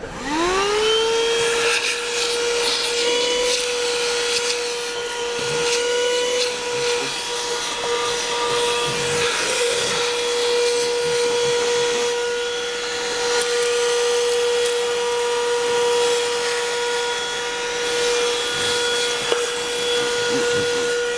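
Worx 12V corded handheld car vacuum switched on. Its motor spins up with a rising whine over about the first second and a half. It then runs steadily with a high hum over an airflow hiss, with a few faint clicks.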